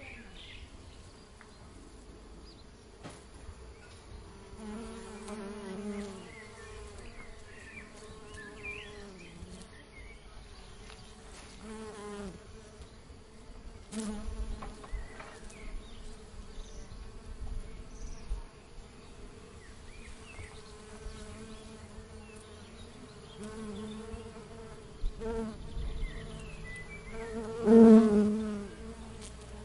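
Honey bees buzzing, several at once. The buzz wavers in pitch and swells as single bees pass close by now and then, loudest near the end.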